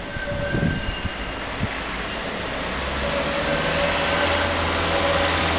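A motor engine running steadily with a low hum, growing louder about halfway through, with a faint whine over it.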